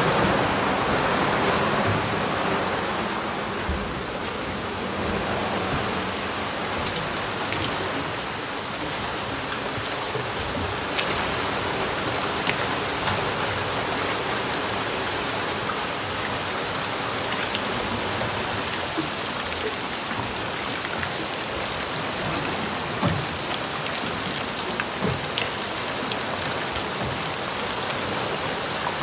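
Heavy downpour from a wet-season weather front pouring onto a lake surface: a steady hiss of rain on water, with scattered sharper taps from drops landing close by.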